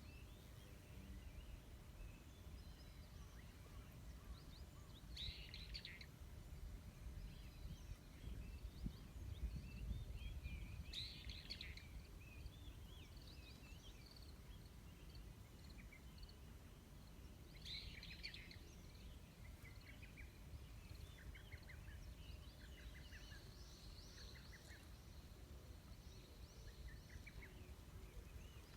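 Birds calling sparsely over a faint low rumble: scattered short chirps, three louder calls about six seconds apart, and quick trilled phrases near the end.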